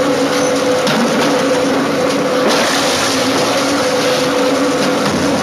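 Heavy crushing machine running, a loud steady drone with a constant hum.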